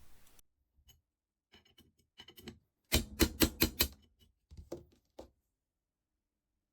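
Sharp metallic taps and clicks as the pin is worked out of an old steel clamp, scattered at first, then a quick run of about six strikes a little past the midpoint and a few more before it stops.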